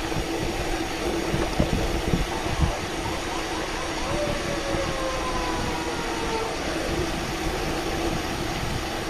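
Wind rushing and buffeting over the microphone on a moving bicycle, with a steady hum underneath. A faint falling whine passes about four to six and a half seconds in.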